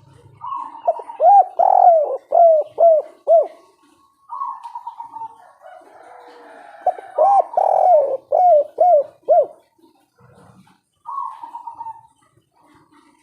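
Spotted dove singing two full cooing phrases. Each starts with a rising note and runs into a quick row of five or six cooing notes, and a third phrase starts near the end.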